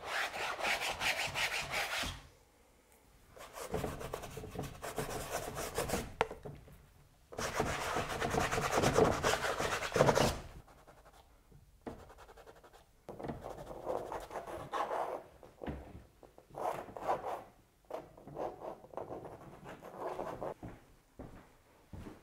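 A cloth rag rubbed over wet acrylic paint on a canvas: three long spells of scrubbing in the first ten seconds, then shorter, choppier strokes.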